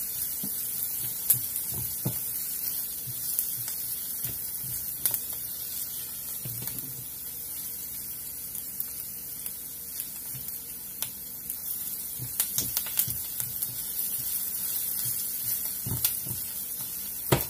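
Chopped onion and garlic sizzling in oil in a skillet: a steady hiss, with scattered knocks and scrapes as a spatula stirs against the pan.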